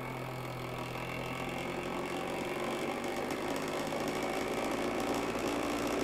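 FoodSaver V2460 vacuum sealer's pump motor running with a steady hum, drawing the air out of a bag of chicken breasts. The hum grows gradually louder as the vacuum builds.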